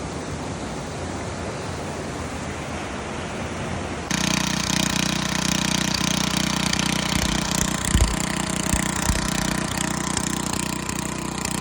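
Rushing river water, then abruptly a small gasoline engine on a gold dredge running steadily, with a few low thumps.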